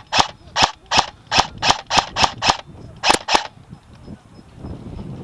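Airsoft guns firing a rapid string of about ten loud single shots, two to three a second. They stop about three and a half seconds in.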